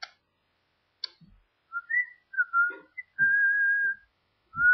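A person whistling a slow tune: a few gliding notes, then long held notes. Two short clicks come before it, in the first second.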